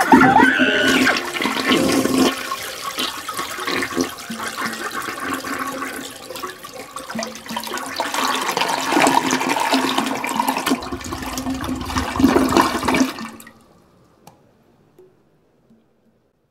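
Rushing, flush-like water noise with faint steady tones beneath it, swelling twice and then cutting off about thirteen seconds in, followed by silence.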